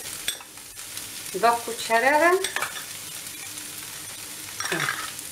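Carrot and onion mixture sizzling gently in a non-stick frying pan while a spoon stirs and scrapes it and flour is spooned in, with a few clicks of the utensils. A short, gliding squeak sounds about one and a half seconds in.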